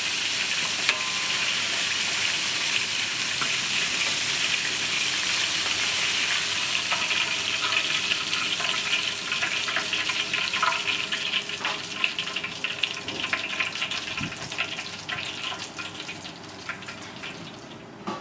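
Food sizzling in hot oil, with utensil scrapes and clinks against the pan as it is stirred. The sizzle dies down over the last few seconds.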